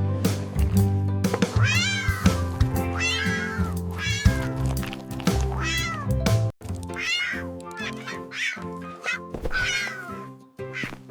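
A cat meowing repeatedly, a string of short rising-and-falling meows every second or so, over background music with steady held notes.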